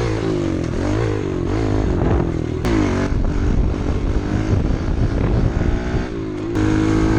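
Pit bike engine revving as it is ridden, its pitch climbing and dropping several times as the throttle is opened and closed, with two sharp clicks, one a little under three seconds in and one near the end.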